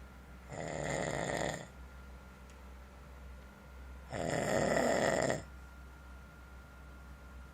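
A man snoring in his sleep: two snores, each about a second long and about three and a half seconds apart, with a steady low hum between them.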